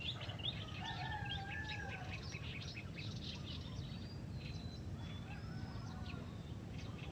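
Small birds chirping and whistling, with a distant rooster crowing about a second in, over a steady low rumble of outdoor background noise.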